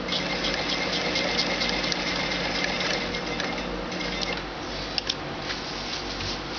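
Electric sewing machine running, stitching through fabric with a steady motor hum and rapid needle ticking, then stopping about four and a half seconds in; a couple of light clicks follow.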